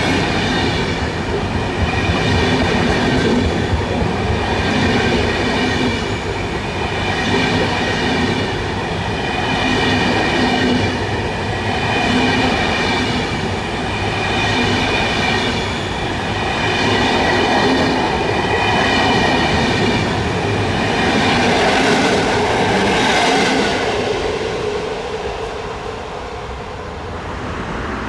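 A train running through the station, with a regular beat and a high ringing squeal from the wheels repeating every second or two. It grows quieter near the end.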